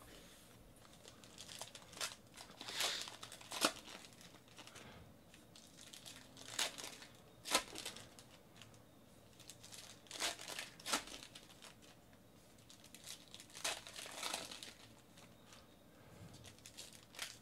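Foil trading-card pack wrappers being torn open and crinkled by hand, in irregular bursts every few seconds with a few sharp crackles.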